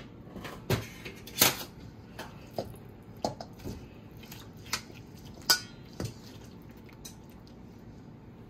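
Kitchen utensils clinking and knocking against cookware while meat is handled: a string of separate sharp knocks over the first six seconds, then only soft handling noise.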